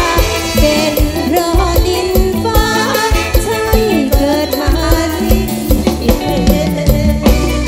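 Live mor lam band music with a heavy, steady drum beat and a sliding melody, with singing.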